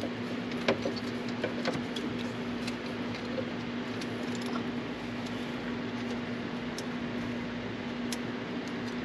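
Light, scattered clicks and rattles of hands working wiring harness leads and plastic connectors, over a steady low hum.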